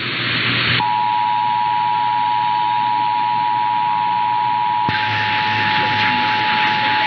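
Emergency Alert System attention signal: two steady tones (853 and 960 Hz) sounding together over hiss, starting about a second in after a brief stretch of hiss alone. It marks an incoming alert, here a required monthly test, just before the voice message.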